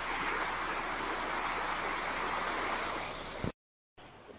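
Steady rushing of flowing floodwater, cutting off suddenly near the end.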